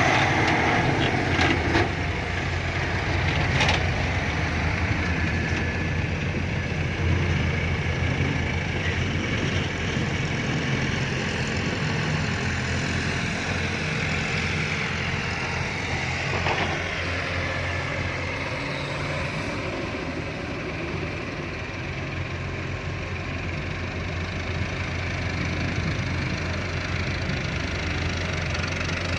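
Diesel engine of a Fiat-Hitachi 150.3 excavator running steadily. A few sharp knocks come in the first few seconds.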